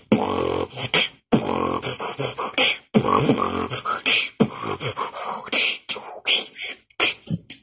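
A person beatboxing: quick runs of sharp percussive mouth sounds and hissing cymbal-like sounds, with several stretches of a held low vocal tone in between.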